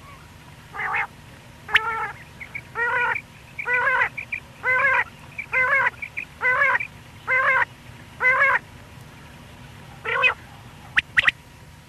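Common quail calling: a series of about ten short nasal notes, roughly one a second, then a pause and two quick sharp, high whistled notes near the end.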